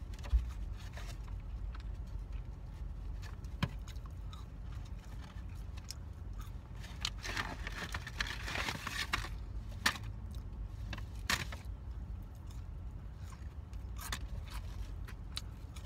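Eating sounds from a person chewing food inside a car: scattered small clicks and a brief rustling stretch about seven seconds in, over a steady low hum of the cabin.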